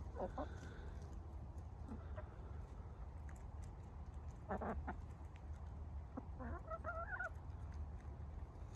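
Backyard hens clucking softly: a few short clucks, then about six seconds in one longer warbling call.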